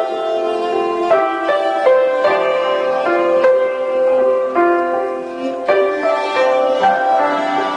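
Violin and grand piano playing together: the violin carries a melody of held notes over the piano's accompaniment.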